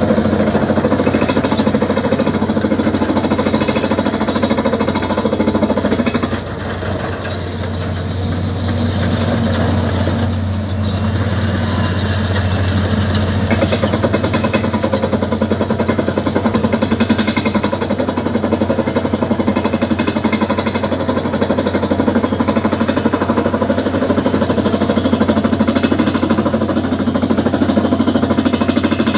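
Micropile drilling rig's pneumatic hammer boring into dolomite rock: a rapid, continuous hammering over the steady hum of the rig's engine. It eases off slightly about six seconds in, then builds back up.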